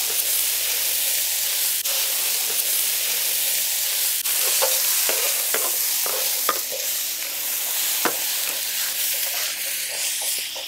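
Chopped onion and sweet peppers sizzling loudly in clarified butter on a large round griddle pan. A metal spatula scrapes and clicks against the griddle as the vegetables are stirred, more often in the second half.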